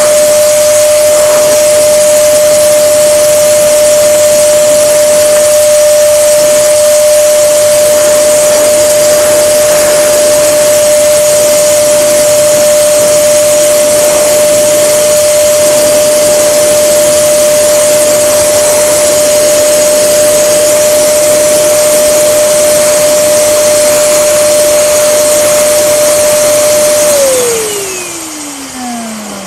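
Electric balloon pump running steadily, blowing air into a vinyl inflatable toy: a loud rush of air over a constant motor hum. About 27 seconds in it is switched off, and the hum falls steadily in pitch as the motor spins down.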